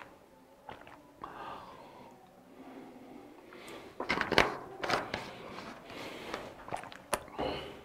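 A run of sharp clicks and knocks starting about four seconds in, after a few quiet seconds.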